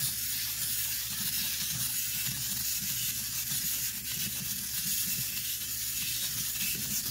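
Plastic wind-up toy's clockwork spring motor running down, a steady whirring buzz with a fast rattle of the plastic toy moving on the wooden tabletop.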